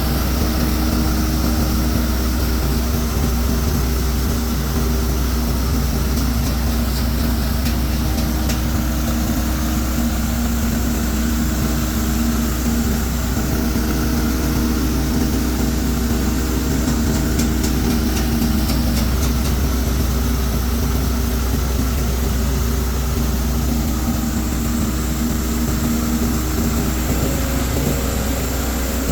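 Rice-husk grinding mill driven by a 10 HP diesel engine, running steadily with a constant low drone.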